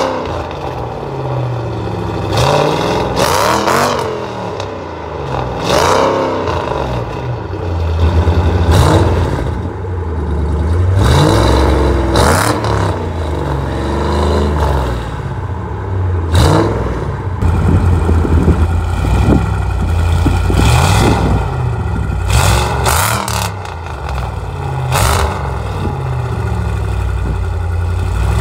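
2007 Mustang GT's 4.6-litre V8 breathing through an off-road X-pipe and Pypes Violator axle-backs, idling with a deep rumble and revved in repeated short blips, each rev rising and dropping back to idle.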